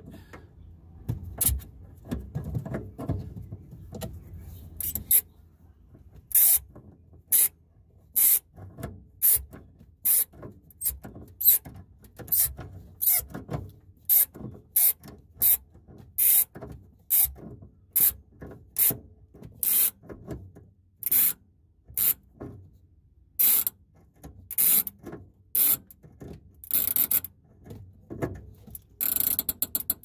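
Tongue-and-groove pliers tightening a threaded fitting nut on a water heater's check-valve line: a run of short, sharp rasping strokes, about one a second, after a few seconds of low, muffled handling noise.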